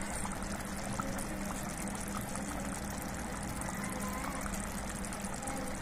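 Chicken tikka gravy simmering in a pot, a steady low bubbling.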